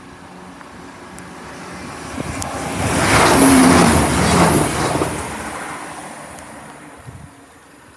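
Diesel passenger train passing close by, swelling to its loudest about three to four and a half seconds in, then fading away.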